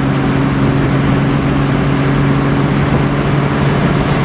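1966 Ford Mustang convertible cruising at a steady speed: a steady low engine drone under tyre and wind noise.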